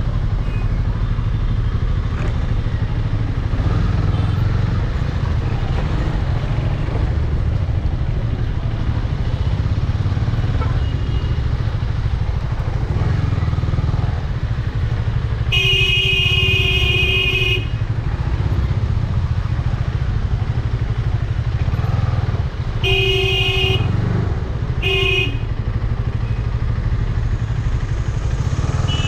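KTM 250 Duke motorcycle's single-cylinder engine running at low revs in stop-and-go traffic. A vehicle horn honks once for about two seconds around the middle, then twice more briefly.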